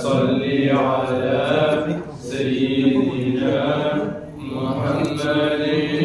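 A man's voice chanting salawat, blessings on the Prophet Muhammad, without instruments. The melody moves in long held notes, broken by two short breaths about two and four seconds in.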